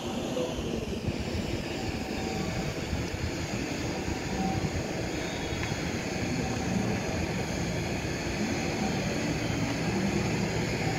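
Steady rumble of an electric train running on the line.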